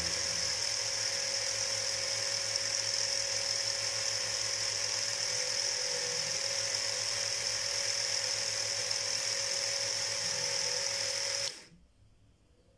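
Small DC motor rig running steadily with a high whine, turning a second shaft at an angle through bent copper-wire cranks. It cuts off suddenly about eleven and a half seconds in.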